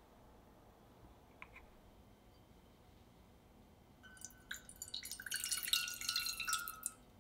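Water poured from a glass measuring cup into an empty enamel saucepan. It starts about four seconds in, with a few drips and then a steady splashing stream for about three seconds, and the pot rings faintly under it.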